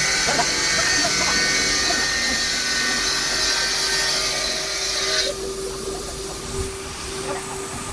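5-axis CNC bridge saw running, a steady hum under a loud high hiss; the hiss cuts off suddenly about five seconds in, leaving the hum.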